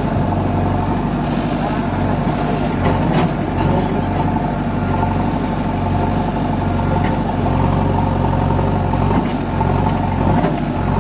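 JCB backhoe loader's diesel engine running steadily at a low, even speed.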